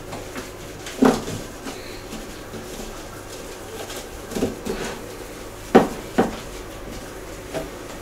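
Bosch refrigerator's plastic crisper drawer being handled on a table: about six separate knocks and clunks, the loudest two close together past the middle.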